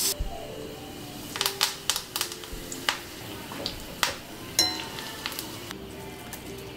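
Several sharp clinks of a metal spoon against dishes, bunched in the first half and twice more a little later, over soft background music.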